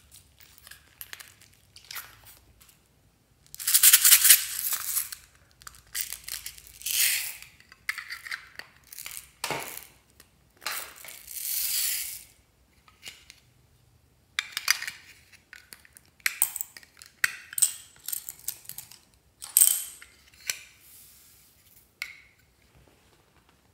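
Small plastic beads poured from containers into a glass dish, in several rattling pours of a second or two each, with clicks and taps of handled containers between.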